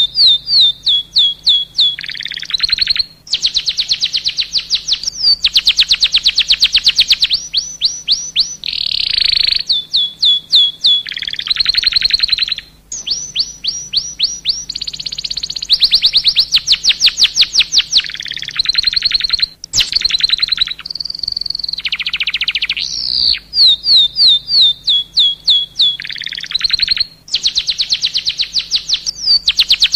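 Domestic canary in full song: loud, continuous rolls of rapid repeated notes, many of them quick downward sweeps, each roll lasting a second or two and switching straight into the next with only brief breaks.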